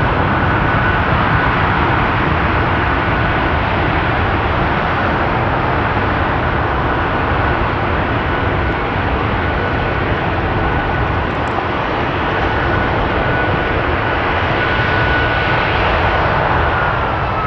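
Boeing 757-200 freighter's jet engine running at high power during a ground engine test: a loud, steady rushing noise with a thin high whine held on one pitch, dipping slightly near the end.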